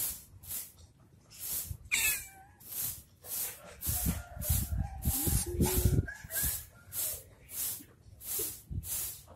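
Kitten meowing in a few short calls around the middle, over a steady pulsing hiss that repeats about twice a second.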